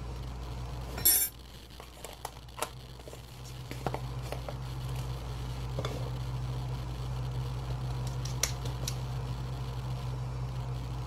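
Stainless steel sieve clinking and knocking against the rim of a glass mixing bowl while flour is sifted: one sharp clatter about a second in, then scattered light clinks. A steady low hum runs underneath.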